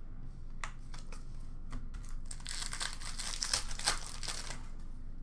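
Plastic wrapper of a hockey card pack crinkling as it is handled and torn open, a dense crackle lasting about two seconds in the middle, after a few light clicks.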